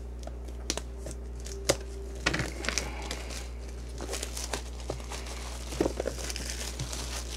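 Plastic wrapping crinkling and tearing as a sealed trading card box is opened by hand, in irregular crackles and small clicks over a low steady hum.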